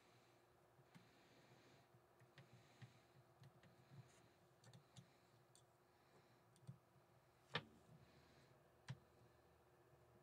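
Near silence, with faint scattered clicks and light taps as a screw and diode laser module are fitted to a mounting plate by hand. Two sharper clicks stand out in the second half.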